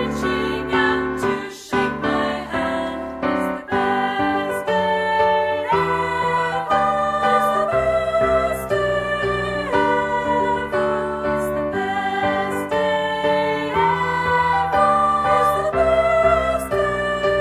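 A song with singing voices over a piano accompaniment, held notes changing every second or so.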